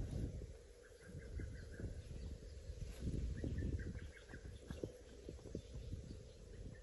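Birds chirping in short repeated notes, over scattered light knocks and clicks.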